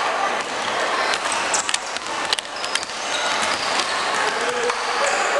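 Basketballs bouncing on a hardwood gym floor, with a few short high-pitched sneaker squeaks, in an echoing hall.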